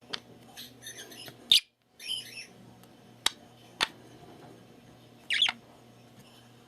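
Pet budgerigar chirping and warbling, with a few sharp clicks and a short louder call about five seconds in.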